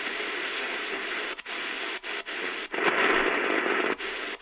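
Shortwave static and hiss from a portable radio's speaker while its tuning knob is turned slowly through the band. The hiss cuts out briefly several times as the tuning steps along, and swells louder for about a second near three seconds in.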